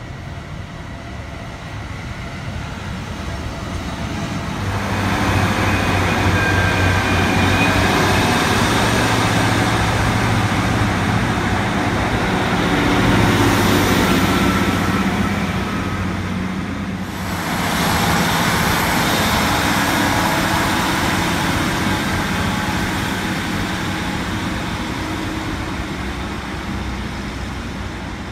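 Diesel multiple unit trains. One runs in with its diesel engine growing louder over the first few seconds and a thin high squeal, and after a sudden change about seventeen seconds in another unit's diesel engine runs steadily.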